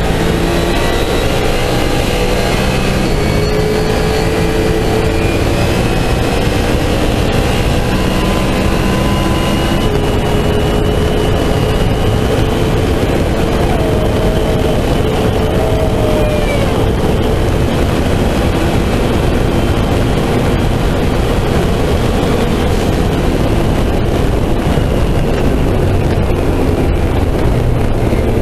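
Turbocharged land-speed race car's engine pulling hard under full load through a long run, buried in heavy wind and road noise, its pitch climbing slowly.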